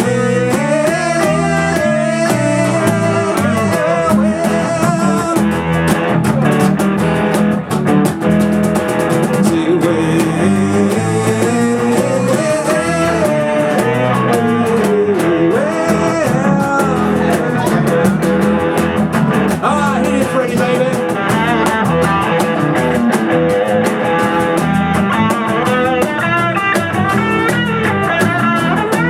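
Live blues-rock band playing an instrumental break: a lead guitar line with bending notes over bass and drums.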